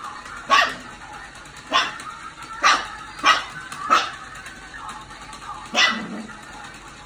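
Husky puppy play-barking: six short, sharp barks, four in quick succession and a last one after a two-second pause.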